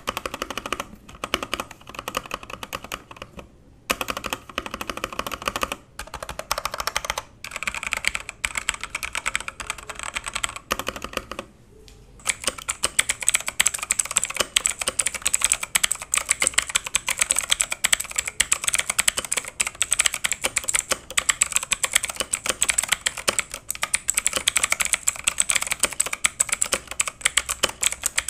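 Typing on an E-Yooso Z94 wired mechanical keyboard: a dense clatter of key clicks. It comes in uneven bursts with short pauses at first, then from about twelve seconds in runs continuously, faster and louder.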